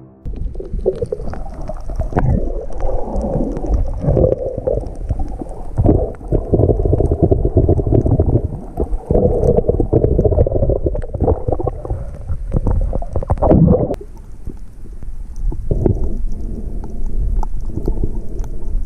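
Underwater camera audio while snorkelling: muffled rumbling and gurgling of water moving around the camera, with scattered clicks, and a sharp click and a brief dip about 14 seconds in.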